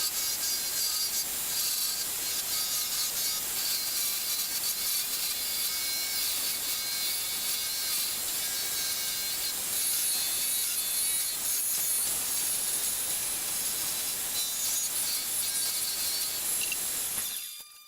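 Turning tool scraping and cutting a test piece of wood spinning on a homemade prototype wood lathe, a continuous scratchy noise with a faint motor whine under it. It cuts off suddenly just before the end.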